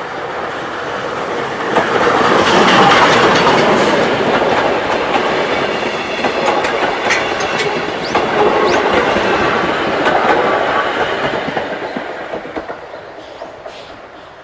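Train hauled by the C11 190 steam tank locomotive passing close by, its wheels clattering over the rail joints. The sound swells about two seconds in, stays loud with a second swell near the middle, and fades away near the end.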